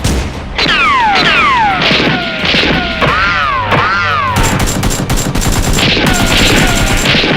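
Battle sound effects: a string of falling whistles like incoming shells, one after another. About four and a half seconds in, rapid machine-gun fire joins them.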